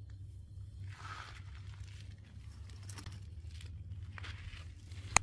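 Lace net curtain fabric rustling as it is handled and shaken out: a few soft swishes over a steady low hum, with a sharp click near the end.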